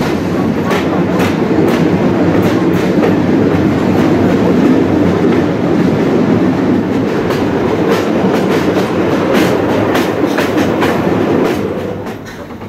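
750 mm narrow-gauge steam train running, heard from an open wagon: a steady wheel rumble with irregular clicks over the rail joints. The noise drops off near the end.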